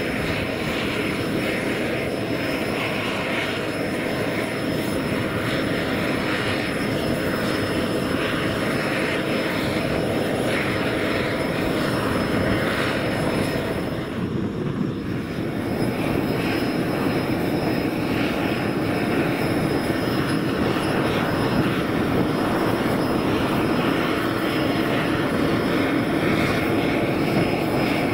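Aircraft engines running on an airport ramp: a steady rumble with a thin high whine over it, briefly dipping about halfway through.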